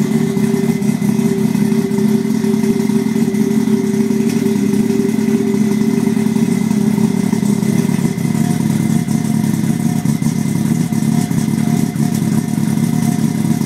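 Mazda RX-8 race car's rotary engine running at a steady idle, its exhaust note loud and even.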